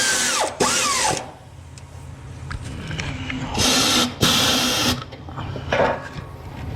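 Pneumatic air ratchet running in short bursts as it drives a 15 mm torque converter-to-flex plate bolt: two bursts near the start and two more around the middle, with small tool clicks between.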